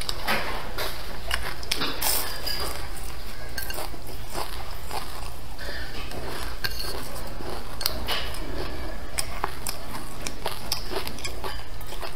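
Close-miked eating: wooden chopsticks clicking against a ceramic bowl, with biting and chewing of braised fish, many short sharp clicks over a steady low background hum.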